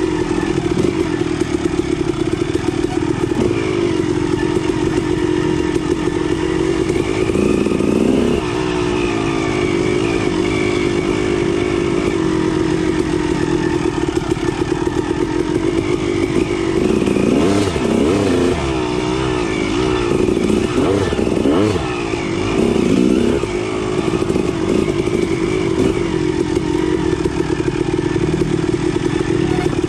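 Dirt bike engine running under way on a trail, mostly at a steady pitch. The revs rise and fall briefly about a quarter of the way in, then swing up and down several times past the middle.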